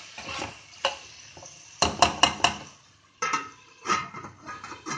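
Slotted steel spatula scraping and knocking against an aluminium kadhai as vegetables are stirred, with a quick run of sharp metal clinks about two seconds in. Near the end a steel lid clatters onto the pan to cover it.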